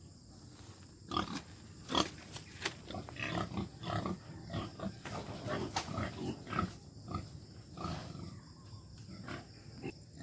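Pigs in a pen grunting irregularly, with a few sharp knocks, likely from the pen, about one and two seconds in.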